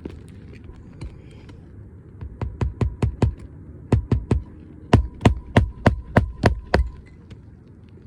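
A hammer driving roofing nails through a new asphalt shingle: three runs of quick, sharp blows, the last run the longest, with a faint metallic ring during it.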